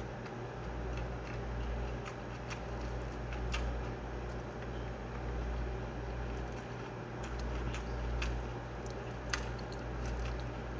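Eating sounds: chewing and scattered small mouth and finger clicks as steamed rice is eaten by hand, over a steady low hum.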